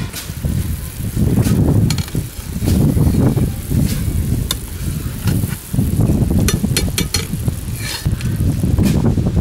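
Sugar syrup boiling hard in an iron kadhai while a metal slotted skimmer scoops off the scum, with scattered sharp clicks of the skimmer against the pan. Wind on the microphone gives a heavy, uneven low rumble that is the loudest thing throughout.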